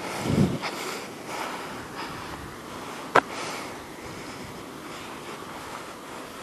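Outdoor background noise as someone carries a camera through brush, with a dull thump just after the start and one sharp click about three seconds in.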